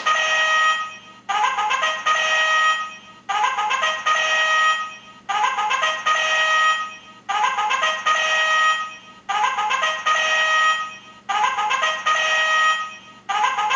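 Lorus "Doki Doki" digital alarm clock sounding its alarm through its horn speaker: a bugle-like electronic call, a short phrase about a second and a half long that starts sharply and repeats every two seconds.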